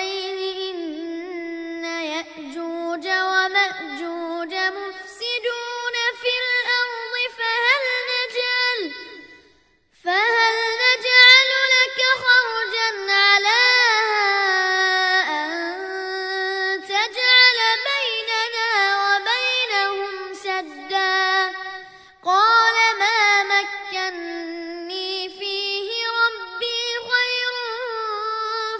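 A child's voice reciting the Quran in melodic tajweed chant: long, held, ornamented notes, with two short breaks for breath.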